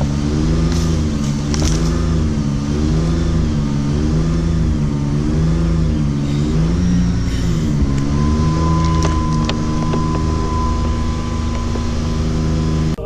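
An engine running, its pitch wavering up and down about once a second, then settling to a steady pitch about two-thirds of the way through.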